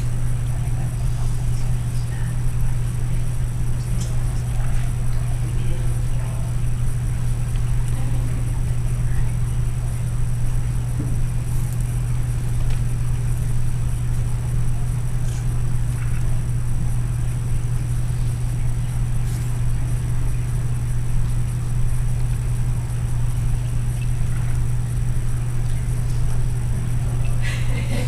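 A steady low hum, with faint indistinct voices and small scattered sounds above it.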